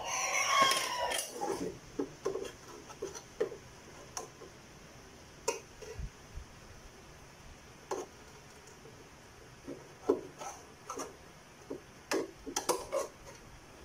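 A metal ladle scraping and knocking against an aluminium cooking pot as cooked bananas in syrup are scooped out: a long bright metallic scrape in the first second and a half, then scattered short clinks and knocks.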